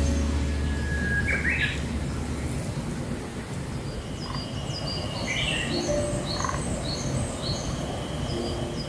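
Wild birds chirping, with a quick run of short, high repeated notes in the second half. A low hum fades out during the first two seconds or so.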